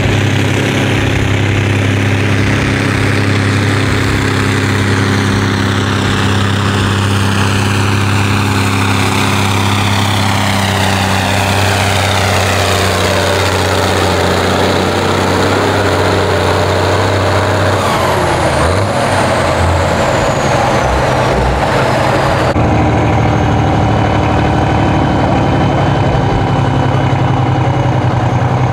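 Modified pulling tractor's engine running hard under load as it drags the weight sled, its pitch falling steadily over about fifteen seconds. After a sudden change near the end, a heavy engine runs steadily with a thin high whine over it.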